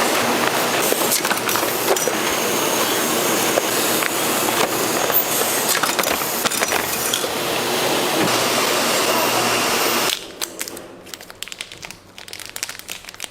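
Pineapple peeling and packing machinery running with a steady mechanical clatter. About ten seconds in it drops suddenly to quieter scattered clicks and rattles.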